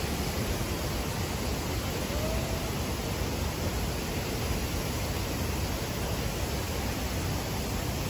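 Steady rushing of a shallow river flowing over rocks and small rapids.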